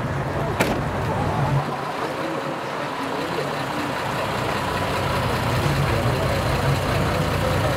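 Diesel truck engine idling, a steady low rumble, with a single sharp click about half a second in.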